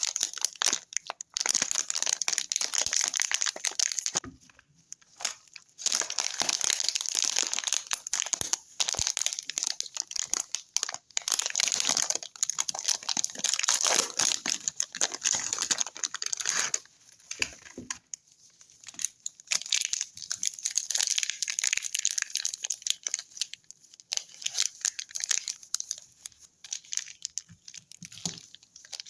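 A dark chocolate bar's wrapper is crinkled and torn open in long stretches of dense crackling, with a short lull. The chocolate itself gives sharp cracks as it is snapped, sparser near the end.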